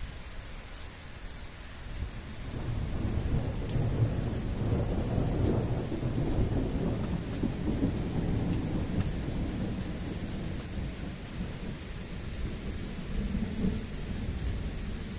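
Rolling thunder: a low rumble swells about two seconds in, stays strong for several seconds, then slowly dies away. Steady rain hisses throughout.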